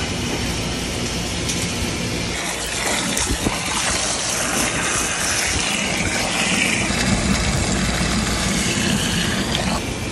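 Water from a hose gushing into a plastic bucket of soybeans as they are rinsed and stirred by hand. A steady low hum runs underneath.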